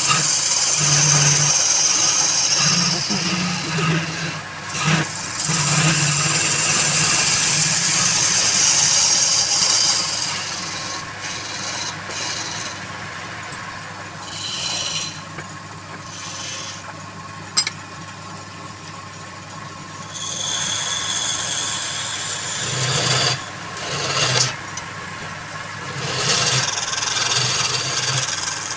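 Wood being worked on a spinning wood lathe: a harsh rasping hiss of wood being cut away, loud for the first ten seconds or so, quieter and patchy after that, then coming back in short bursts near the end, over an on-and-off low hum.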